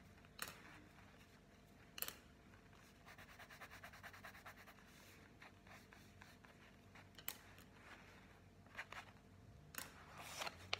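Faint scratching of a coloured pencil drawing strokes on paper, with a few light clicks and taps in between.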